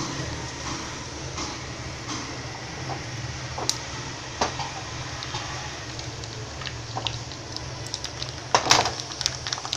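Curry leaves and mustard seeds frying in hot oil in a small tempering pan: a steady sizzle with scattered pops and crackles. A brief, louder clatter comes near the end.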